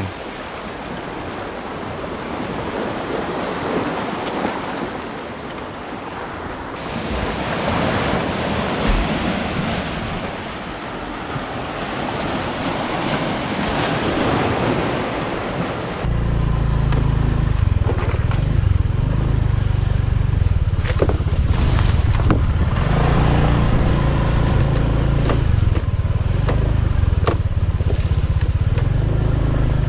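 Surf washing onto a rocky shore, swelling and fading, for about the first half. Then a sudden cut to a louder, steady low rumble with scattered knocks: a motorbike riding along a rough dirt track.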